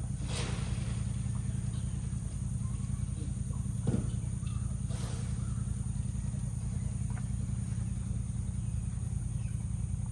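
Steady outdoor ambience: a constant low hum and a constant high-pitched drone, with a few faint knocks and rustles.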